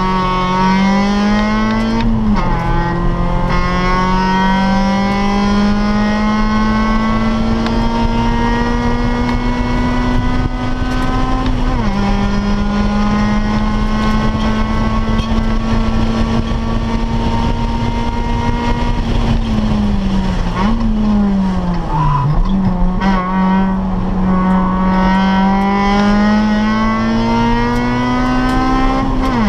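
1997 Acura Integra GS-R's 1.8-litre DOHC VTEC four-cylinder, with cold-air intake and full exhaust, heard from inside the cabin pulling at high revs on track. Its pitch climbs slowly in each gear and drops suddenly at gear changes, about two seconds in and about twelve seconds in. Around twenty seconds in, the revs fall steeply under braking and are blipped back up through downshifts.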